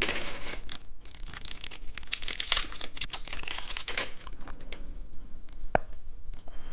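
Plastic candy wrapper crinkling and tearing as it is unwrapped, for about four seconds, then a few faint clicks.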